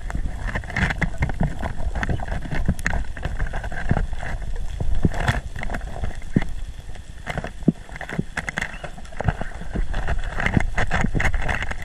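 Underwater ambience through a GoPro's waterproof housing: a steady low rush of water moving past the camera as the diver swims, with irregular sharp clicks and crackles throughout.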